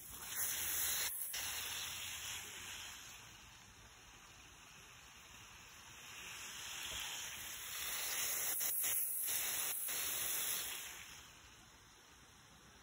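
Garden hose spray nozzle spraying water onto soil and onion plants, a steady spray that swells louder at the start and again in the middle, then drops away near the end.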